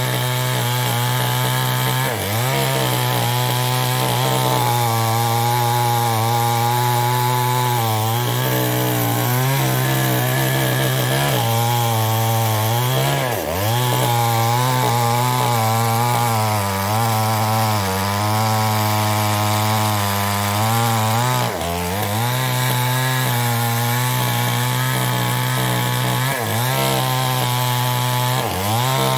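Chinese-made two-stroke chainsaw running at high revs while cutting mahogany wood. Its engine note wavers under the load of the cut and sags sharply four times, around 2, 13, 22 and 26 seconds in, before picking back up.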